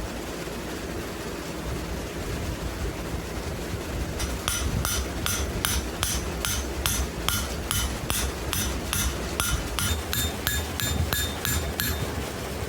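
Hand hammer striking hot wrought iron on an anvil, about three blows a second, each with a short metallic ring from the anvil: forge-welding a crack in the iron closed. The blows start about four seconds in, over a steady low rumble.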